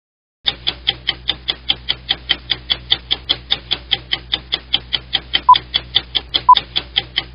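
Rapid clock ticking, about five sharp ticks a second, with two short beeps about a second apart near the end: a stopwatch-style intro sound effect.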